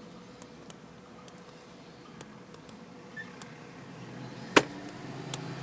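Small, irregular metallic clicks and ticks of a pick and tension wrench working the pins of a Lockwood 215A40 lockout-tagout padlock. One sharper, louder click comes about four and a half seconds in.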